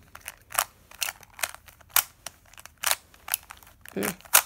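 Plastic layers of a YJ Yulong Square-1 puzzle being turned, each move landing with a sharp clack, about two a second. A brief vocal sound comes near the end.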